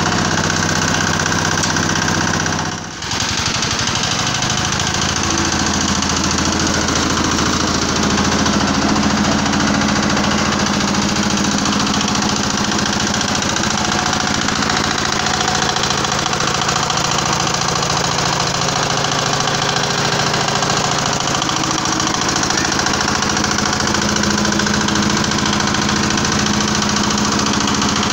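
Mini palm-oil screw press running, its drive motor and pressing screw making a loud, steady mechanical noise, with a brief drop in level about three seconds in.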